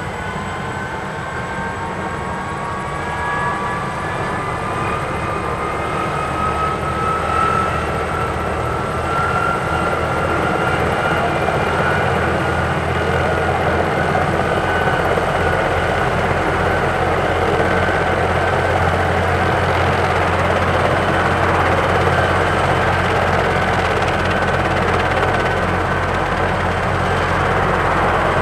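Bell 412 military helicopter's twin turbine engines spooling up on the ground, a whine rising in pitch over the first dozen seconds and then holding steady. The main rotor's low beat grows from about halfway in as the rotor comes up to speed, and the whole sound gets steadily louder.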